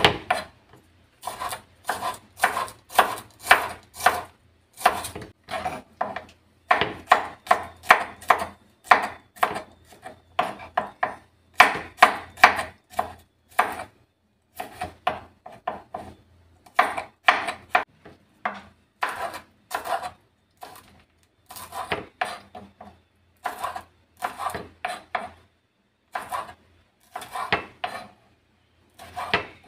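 Kitchen knife slicing shallots, garlic and red chilies on a wooden cutting board: quick runs of sharp knocks of the blade on the board, broken by short pauses.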